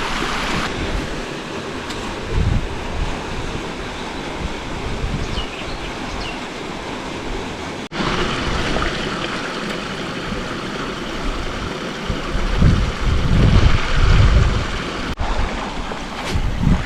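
Creek water rushing steadily over rocks, with wind buffeting the microphone for a few seconds near the end. The sound drops out for an instant twice.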